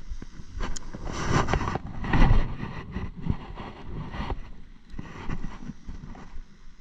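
Wind buffeting the microphone in irregular gusts, loudest about one to two and a half seconds in.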